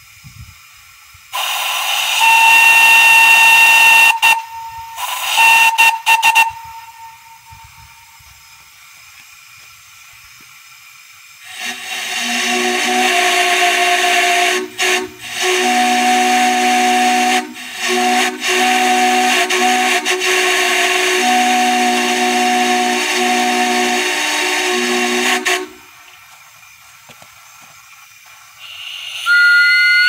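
Steam whistles blown on compressed air. First a single-note whistle sounds a few short, hissy blasts. Then, after a pause, a multi-chime whistle sounds a low chord in a series of blasts lasting about fourteen seconds, broken by brief gaps.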